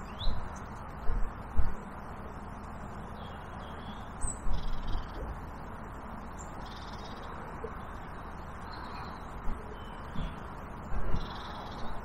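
Corvids cawing now and then over a steady background hiss, with several low thumps standing out as the loudest moments.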